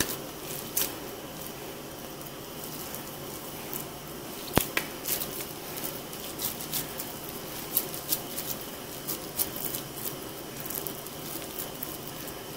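Bare hands squeezing and shaping cold raw ground beef into a patty: soft squishing with scattered light clicks, and one sharp click about four and a half seconds in.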